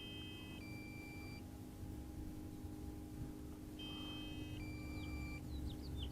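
DJI Phantom 4 controller and flight app sounding a two-tone electronic warning beep, a higher tone then a lower one, twice about four seconds apart: the low-battery warning as the pack runs down. A bird chirps quickly near the end.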